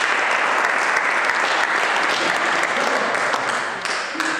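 Audience applauding, a dense spell of clapping that thins out and dies away near the end.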